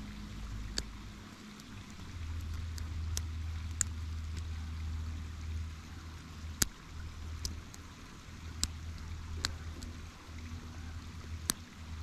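Small sharp metallic clicks, about eight spread a second or so apart, from a hook pick lifting the security pins of an Abus 90 50mm padlock under tension, over a low steady rumble.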